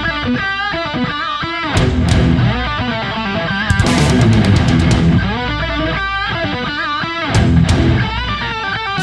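Background rock music with electric guitar over a steady bass and drum beat.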